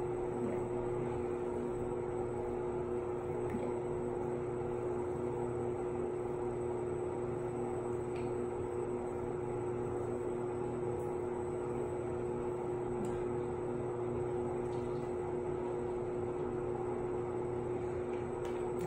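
Steady mechanical hum with a fixed low tone.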